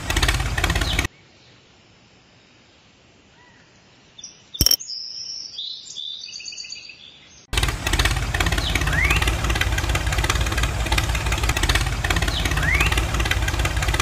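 Tractor engine sound effect running in a steady low chug. It cuts off about a second in. After a few quiet seconds come a sharp click and a spell of high chirping tones. The engine sound starts again about halfway through and runs steadily, with two short rising chirps over it.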